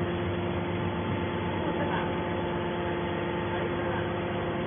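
Hydraulic scrap metal baler's power unit running steadily: a constant machine hum with several steady tones over an even noise.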